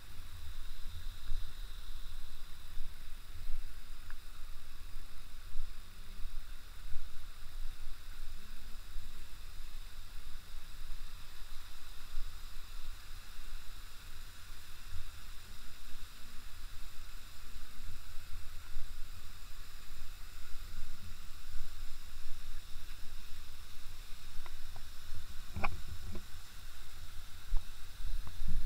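Low, uneven rumble of outdoor ambience with a faint steady hiss above it, and a single sharp click near the end.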